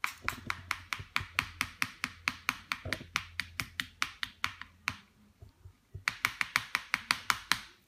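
A metal key scraped hard and fast back and forth across a film screen protector on a Samsung Galaxy Note 4, about five strokes a second. The strokes pause briefly about five seconds in, then start again for a last run of about two seconds.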